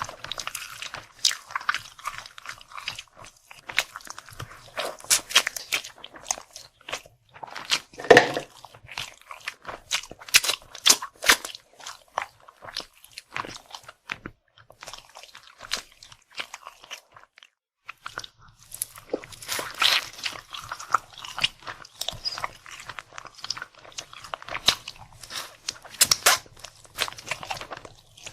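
Close-miked eating sounds: food being bitten, crunched and chewed, with a run of sharp crunches and a lull of a few seconds past the middle.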